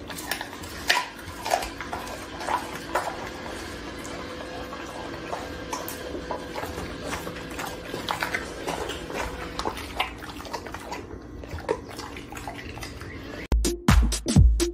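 A dog licking and chewing at food on a tile floor: irregular wet smacks and sharp little clicks of its mouth and tongue. Near the end, electronic dance music with a heavy kick drum, about two beats a second, comes in.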